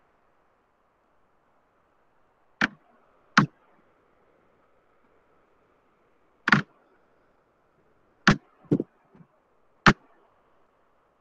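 A stylus tapping on a tablet's glass screen: about six sharp taps, spaced irregularly, two of them close together past the middle, over a faint steady hiss.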